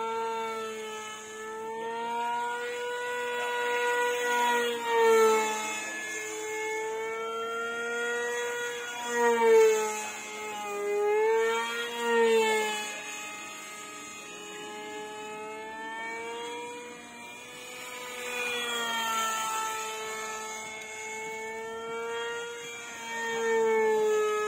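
Whine of a DIY Zagi flying wing's brushless electric motor and propeller in flight, a steady pitched tone that rises and falls in pitch, with several louder swells in the first half.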